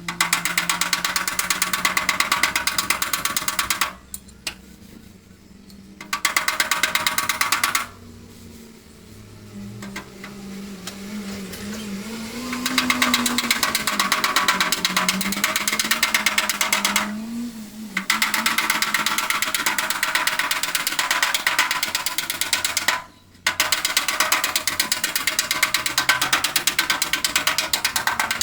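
Rapid, even tapping of a body hammer on the sheet-metal hood of a VW Beetle, in runs of several seconds with short pauses, working a dent out from the edges toward the centre.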